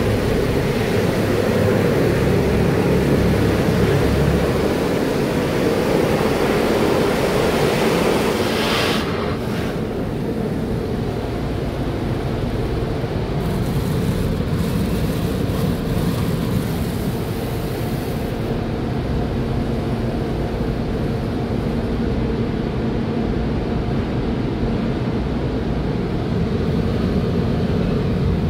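Water jets and spray in a Sonny's tunnel car wash, a steady rush drumming on the car's glass and body, muffled inside the cabin. It is loudest for about the first nine seconds, then drops to a softer rush over a steady low machine hum.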